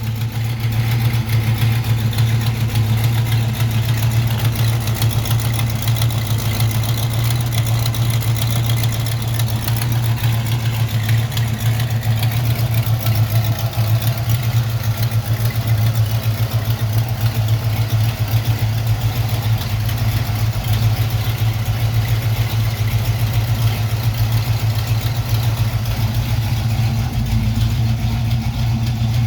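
Car engine idling steadily, with a fine rapid ticking over its hum; the car has an exhaust leak still to be fixed.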